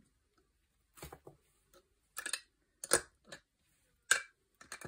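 Plastic pens clicking and tapping against a clear plastic pen holder as they are set in and handled: a string of about eight separate, irregular clicks.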